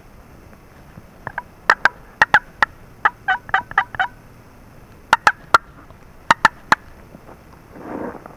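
Turkey calling: short, sharp notes in five quick runs of two to six notes each over about five seconds. A brief rustle near the end.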